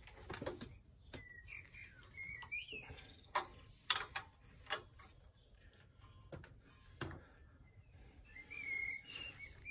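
A hand wrench working the front-axle pinch bolts on a Harley-Davidson Road King's fork leg: scattered sharp metallic clicks and clinks as the bolts are cracked loose, the loudest about four seconds in. A wavering whistle-like tone sounds twice, briefly early on and again near the end.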